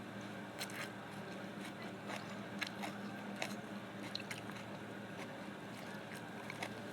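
Food being bitten and chewed, with irregular crunching clicks and wet squishing sounds, over a steady low hum.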